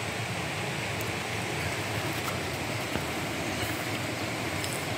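Steady rushing hiss, with a few faint light taps from hands working the bamboo strips of a basket trap.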